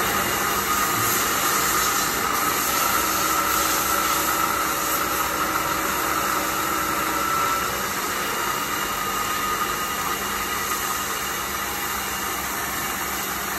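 DPM CNC bed mill's spindle head running: a steady mechanical hum with a whine that rises slightly in pitch. About seven and a half seconds in, the whine fades and the hum carries on a little quieter.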